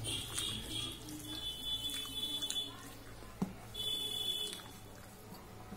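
Wet eating sounds: rice and dal being squeezed and mixed by hand on a steel plate and chewed. They come in short, high-pitched squelching bursts every second or two, with one sharp click just past the middle.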